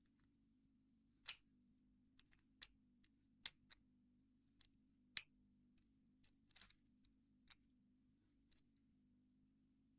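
Homemade lock picks working in a padlock: scattered faint metallic clicks and ticks at irregular intervals, with two sharper clicks about a second in and halfway through.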